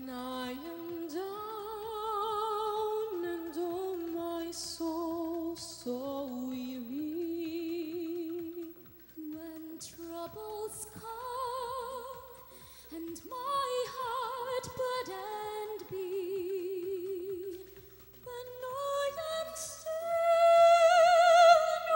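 Women singing into microphones: long held notes with wide vibrato. The singing swells to its loudest on a rising high note near the end.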